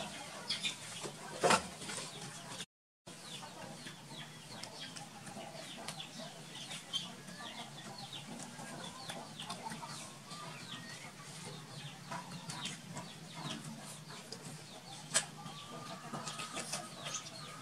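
Chickens clucking, with many short high chirps scattered throughout. The sound cuts out completely for a moment about three seconds in.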